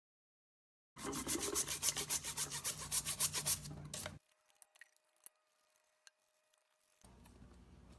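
Toothbrush scrubbing a grimy dishwasher filter with baking-soda paste: quick back-and-forth scrubbing strokes that start about a second in, run for about three seconds and stop.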